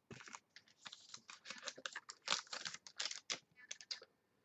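Football trading cards and packs being handled and flipped through: a rapid, irregular run of light clicks and rustles.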